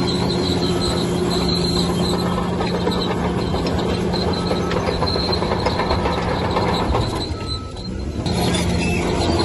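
Bulldozer diesel engine running steadily under load, with intermittent high squeals from its steel crawler tracks. The engine note drops briefly about seven and a half seconds in, then comes back up.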